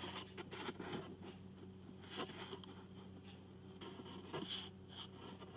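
Faint scraping, rustling and scattered light clicks of food being handled, over a steady low hum.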